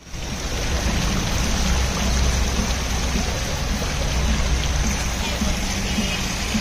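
Water splashing from a tiered stone fountain into its pool: a steady rush of falling water that starts suddenly and holds level.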